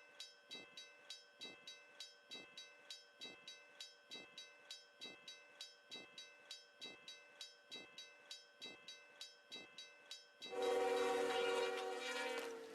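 Soft ringing strikes repeat evenly about twice a second. Near the end a train's air horn sounds one long, loud chord.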